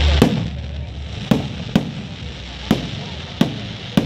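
Aerial fireworks shells bursting overhead: a string of sharp bangs, about six in four seconds at uneven intervals.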